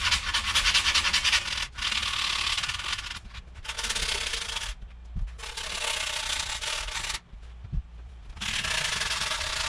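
Skateboard grip tape's cut edge rubbed with an offcut of grip tape: a rough, sandpaper-like scraping in about five spells of rubbing with short pauses between them, smoothing the trimmed edge so it won't peel.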